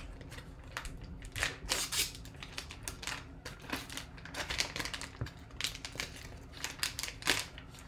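Foil trading-card pouch crinkling and crackling in irregular bursts as it is handled and cut open.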